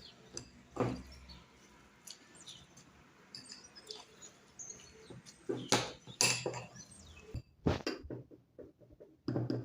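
A spoon mixing grated turnip with powdered sugar in a bowl: a few scattered knocks and clinks, the loudest about six to eight seconds in, with faint short high squeaks between them.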